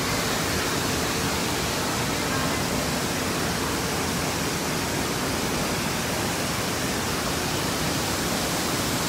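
Steady rushing of running water in an indoor water park, from the churning lazy river and water pouring down a slide into the pool.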